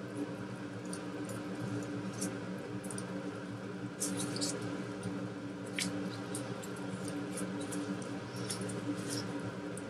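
Foil wrapper of a Knorr stock cube crinkling and crackling as it is picked open by hand, in scattered small crackles, the sharpest about four seconds in and again near six seconds. A steady low hum runs underneath.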